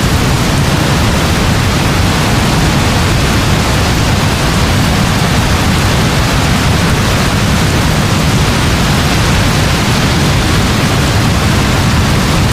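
Heavy rain falling in a steady, even wash, with no let-up or distinct drops, its weight strongest in the low end.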